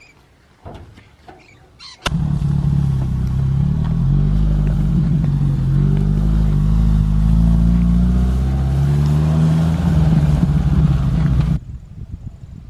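Suzuki Sierra 4x4 engine running under load while driving, its pitch stepping up and down with the revs. It comes in suddenly about two seconds in and cuts off shortly before the end.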